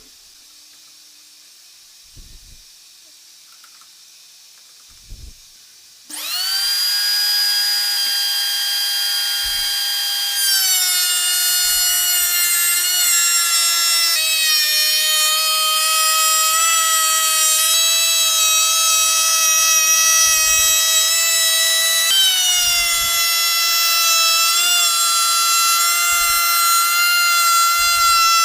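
A few faint knocks, then about six seconds in an electric power tool spins up to a high, steady whine and keeps running, its pitch dipping a few times as it takes load.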